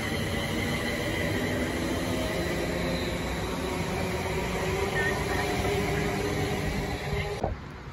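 London Northwestern Railway Class 350 Desiro electric multiple unit running past along the platform: wheels on rail with a steady rumble and a few steady whining tones from its traction equipment. The sound cuts off abruptly near the end.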